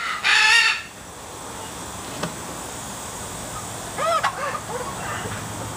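Gray junglefowl rooster calling: a loud call with a wavering pitch ends less than a second in, and about four seconds in comes a quieter run of short notes that rise and fall.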